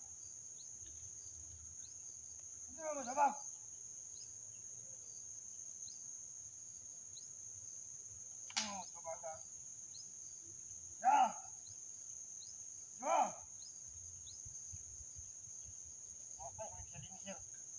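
Steady high-pitched drone of insects. Over it come short voice-like calls, each well under a second, about four times, and a single sharp snap about halfway through.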